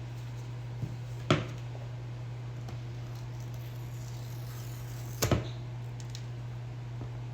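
Handling of a new phone's packaging during unboxing: a faint tick, then a sharp click about a second in and a double click about four seconds later, over a steady low hum.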